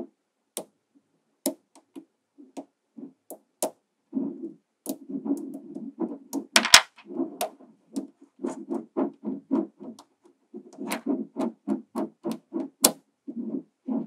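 Small magnetic balls clicking and clacking as they are snapped one by one onto a cylinder built of magnet balls. The clicks come irregularly, singly and in quick rattling runs.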